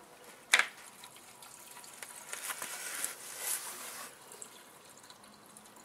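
Fuel poured from a plastic gas can into a snowblower's fuel tank, trickling and splashing for a couple of seconds in the middle. A sharp knock comes about half a second in.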